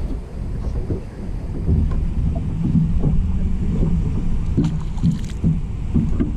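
Wind buffeting the microphone on an open bass boat: a dense low rumble that rises and falls, with a couple of light clicks about two-thirds of the way through.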